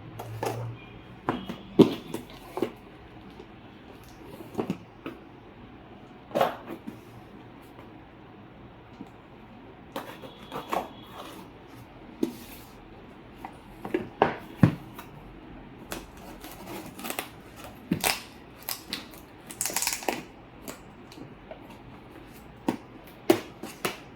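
A cardboard product box being cut open and handled, with irregular scrapes, rustles and knocks.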